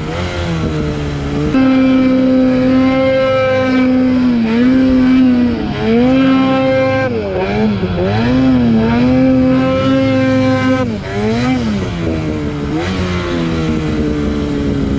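Snowmobile engine running hard, its pitch dipping and climbing again every second or two as the throttle is worked. It settles to a steadier, lower pitch for the last couple of seconds.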